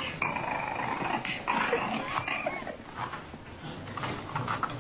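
French bulldog puppy growling in a run of short bursts.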